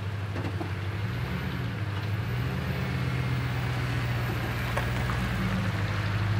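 Pickup truck engine idling with a steady low hum.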